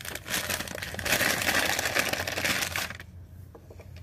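Wrapping paper crinkling and rustling as a small figurine is unwrapped and handled, dying down about three seconds in.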